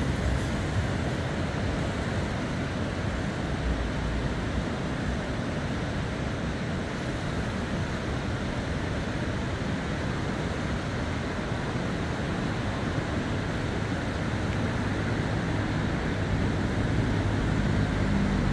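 Steady rushing of the flood-swollen Neckar river, fast turbulent floodwater. A low rumble swells under it near the end.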